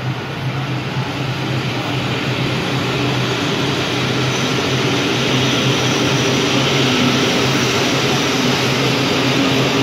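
Passenger train of coaches rolling along the platform, a steady rumble of wheels and running gear that grows gradually louder as it gathers speed.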